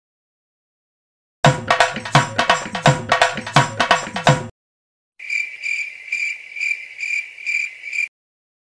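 Edited sound effects between stretches of dead silence: a short burst of fast drum and percussion music, then a cricket chirping effect, each lasting about three seconds and cutting in and out abruptly.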